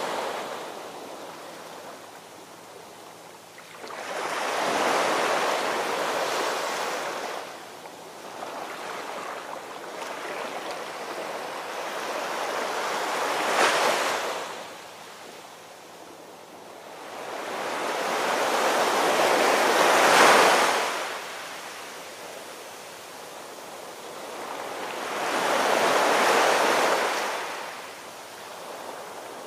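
Ocean surf: waves washing in and drawing back, the rush rising to a peak four times, roughly every six to seven seconds.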